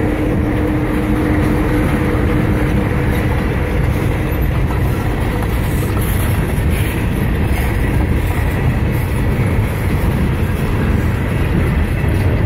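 Loaded CSX freight train passing slowly and close by, with steady wheel-on-rail rumble. A steady hum from the diesel locomotive passing at the start fades out about five seconds in, leaving the rolling of the freight cars.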